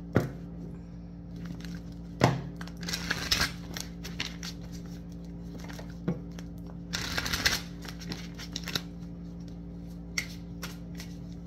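A deck of tarot cards being shuffled by hand: two spells of card rustle, about three seconds in and about seven seconds in, with a few sharp taps and small clicks of the cards. A steady low hum runs underneath.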